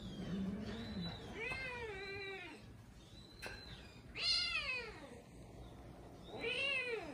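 Kitten meowing three times, each call rising and then falling in pitch; the second call is the loudest.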